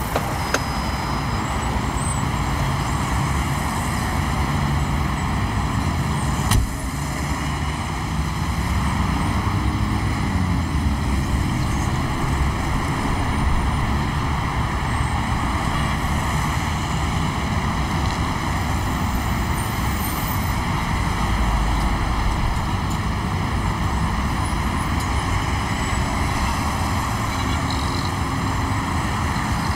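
A car driving in city traffic: steady engine and road rumble, with a brief knock about six and a half seconds in.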